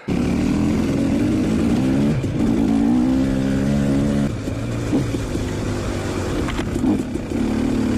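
Two-stroke dirt bike engine running under throttle, recorded on board while riding a trail. The engine note climbs for a couple of seconds, drops sharply about four seconds in, and then keeps running.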